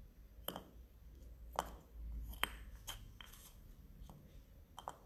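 A handful of small, sharp clicks and taps, about six in five seconds at irregular spacing, over a faint low room hum.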